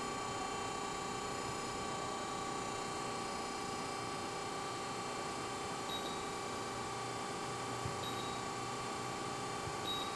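Steady machine hum from the press brake and shop, with several constant tones. Three short high beeps sound about two seconds apart, from keys pressed on the CNC control's touchscreen, and a soft knock comes just before the second beep.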